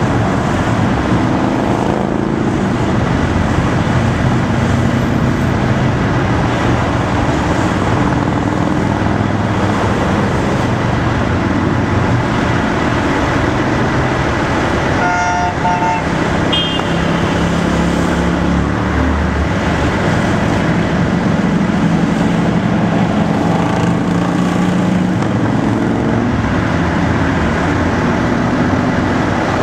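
A long line of motorcycles passing, many engines running together in a steady drone, with cars and trucks following. About halfway through, a vehicle horn gives two short toots.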